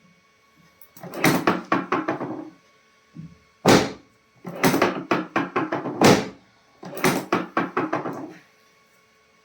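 Chiropractic adjustments: several bursts of short knocks and thumps, with a few sharp, louder single knocks among them.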